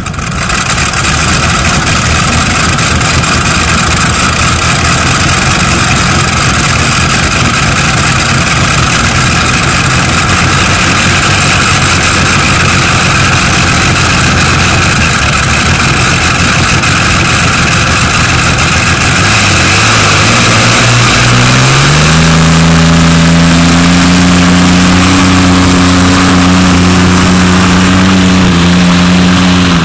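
Modified pulling tractor's engine running loud and steady, then revving up sharply about two-thirds of the way through and holding a high, steady pitch as it drags the weight sled down the track.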